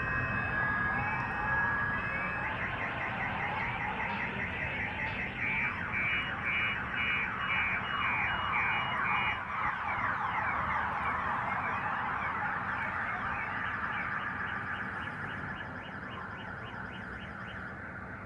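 Several car alarms sounding at once, overlapping steady tones, fast beeping and rising-and-falling wails, set off by the blast of a shot-down drone. They slowly fade over the last few seconds.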